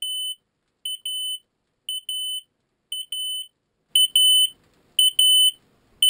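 Photoelectric smoke alarm sounding after detecting smoke: a shrill, high electronic beep repeating about once a second, each time a short blip followed by a longer tone. The beeping gets louder about four seconds in.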